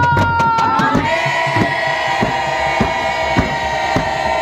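Protesters chanting: a call that slides down in the first second, then voices holding one long drawn-out note. Hand-beaten frame drums keep a steady beat under it, a little under two strokes a second.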